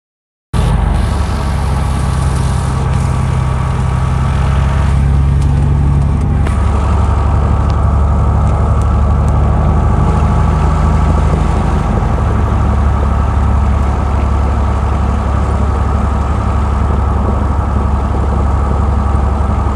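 Cabin sound of a 1966 Reims Cessna F172G light aircraft on the ground, its six-cylinder Continental O-300 engine and propeller running steadily at low taxi power. The sound cuts in sharply about half a second in, with a steady low engine note and no change in pitch.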